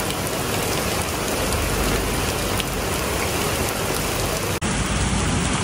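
Torrential rain pouring steadily onto a paved street and pavement, an even, unbroken hiss. About four and a half seconds in it drops out for an instant and then carries on.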